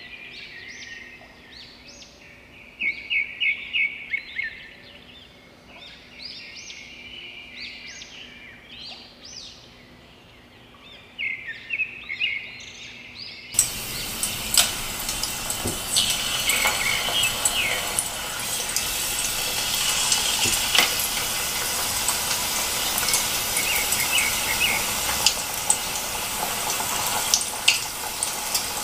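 Birds chirping in quick repeated notes for about the first half. Then, suddenly, hot oil sizzling and crackling steadily as chicken skewers wrapped in shredded potato deep-fry in a metal wok.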